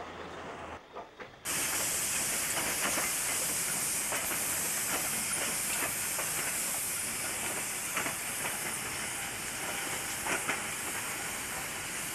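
Steady, loud steam hiss from a South Maitland Railways 10 class steam locomotive, starting abruptly about one and a half seconds in, with a few faint knocks through it.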